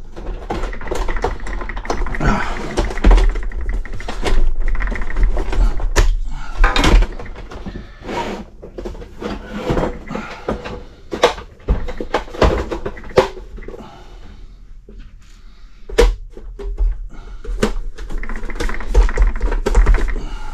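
Plastic housing of a Honeywell HZ510 space heater being handled and fitted back together: a run of irregular clicks, knocks and rattles of plastic parts, with scraping in between.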